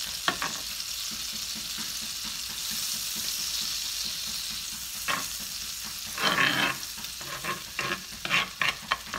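Butter sizzling as it melts in a frying pan, a steady hiss, with metal tongs tapping and scraping against the pan. The taps start about halfway through and come faster near the end.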